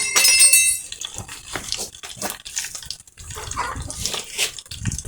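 Water running and splashing in irregular splashes and drips, with a brief high squeak in the first second.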